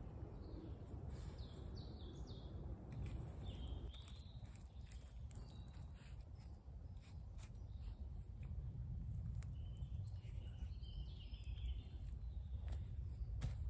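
Low wind rumble on the microphone, with small birds chirping a few times and light clicks and taps of small objects being handled.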